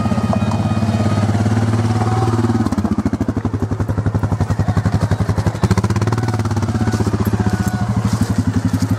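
A motor vehicle's engine running close by with a steady low throb and a fast, even beat. The beat becomes more pronounced from about three seconds in.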